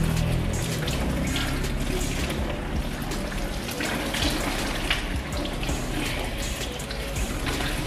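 Water from a handheld shower sprayer running over hair and splashing into a shampoo basin as fingers work the wet hair through during a rinse, with steady spray and irregular splashes and drips.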